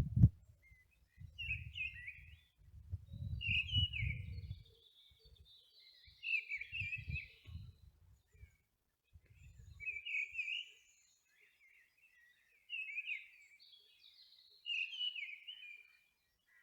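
Songbirds singing outdoors in short, repeated chirping phrases, with intermittent low rumbles on the microphone during roughly the first ten seconds.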